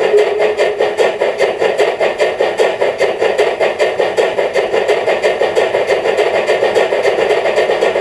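Sound module of a KISS large-scale model of the Harz Brockenlok class 99.23 steam locomotive playing steam exhaust chuffs from its loudspeaker: rapid, even beats, about six a second.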